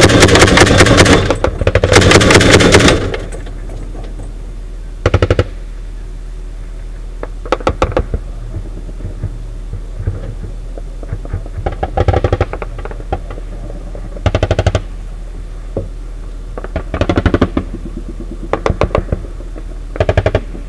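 Turret-mounted machine gun on an armoured vehicle firing two long, very loud bursts, the second ending about three seconds in. After that come short, quieter bursts of automatic gunfire from further off, every couple of seconds.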